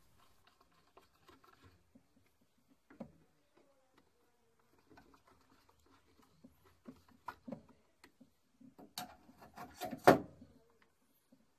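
Handling noises: scattered light clicks and knocks from a screwdriver and hands working on an oil burner's parts, with a short run of louder knocks and rattles about nine to ten seconds in.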